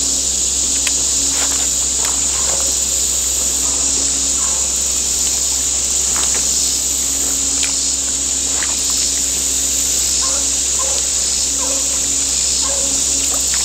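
A steady high buzz of summer insects over the low engine drone of tree-trimming equipment, with a beagle baying every second or two as it runs rabbits.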